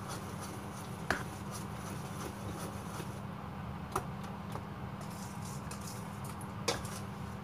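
Chocolate cake batter being stirred by hand in a stainless steel bowl, the utensil clinking sharply against the bowl three times: about a second in, around four seconds in and near the end. A steady low hum runs underneath.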